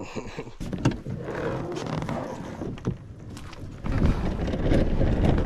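A Feelfree Dorado 125 plastic fishing kayak being hauled over grass on its keel wheel: a few knocks as the hull is handled, then a rough rolling rumble that grows louder about four seconds in as the pull gets going.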